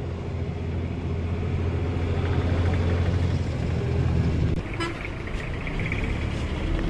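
An engine running nearby with a strong, steady low hum that lightens and changes about four and a half seconds in.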